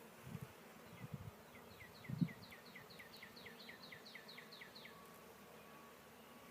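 Honeybees buzzing faintly around an open hive, with three dull low thumps in the first couple of seconds, the third the loudest. Over this runs a quick series of about fifteen evenly spaced chirps, roughly four or five a second, ending about five seconds in.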